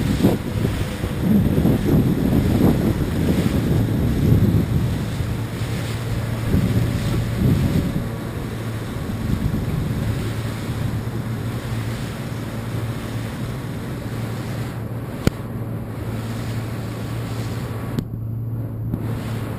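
Wind buffeting the microphone over choppy water on a motor tender, with the boat's engine humming steadily underneath; the gusts are heavier in the first several seconds. One sharp click about fifteen seconds in.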